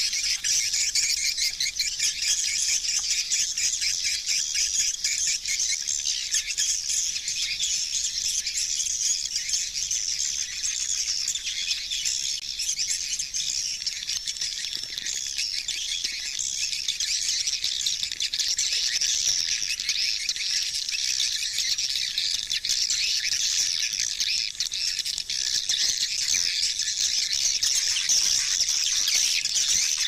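A dense, unbroken chorus of high-pitched swiftlet twittering: many overlapping chirps running steadily, with nothing in the low range.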